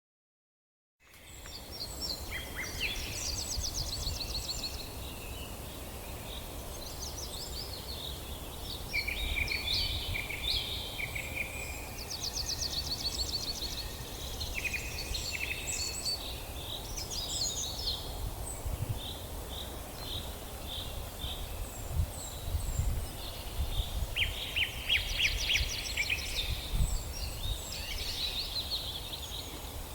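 Several birds chirping and trilling, many short calls and quick trills overlapping, over a steady low rumble like wind on the microphone with a few low bumps.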